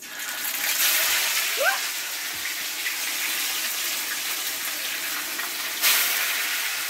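Salmon fillets frying skin side down in hot avocado oil: a steady sizzle that starts suddenly as the first fillet goes into the pan and flares up briefly about six seconds in as the second fillet is added.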